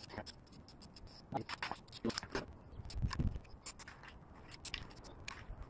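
Scattered short clicks, taps and scrapes of things being handled, with a few low knocks about three seconds in.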